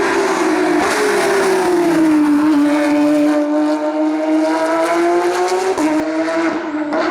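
Race car engine running at high revs up a hillclimb course, its pitch sagging slightly and then holding steady. Near the end the note breaks briefly a couple of times, as the throttle lifts or the car shifts gear.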